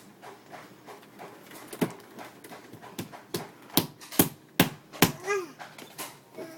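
Sharp, irregular knocks and slaps from toddlers' hands banging on an electric fan, coming quickest between about two and five seconds in. A little after five seconds comes a brief squealing vocal from one of the toddlers.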